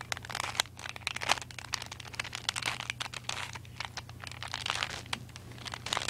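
A Rubik's Cube being turned quickly by hand: a rapid, irregular run of plastic clicks and scrapes as its layers are twisted.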